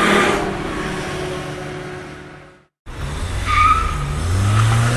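Race car sound effects: a car engine swells and fades away as it passes. After a brief cut to silence a second engine revs up, rising in pitch, with a short tire squeal, and cuts off abruptly.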